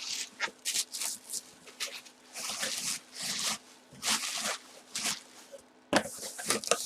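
Irregular rustling and handling noises: short hissy bursts with a few sharper knocks near the end.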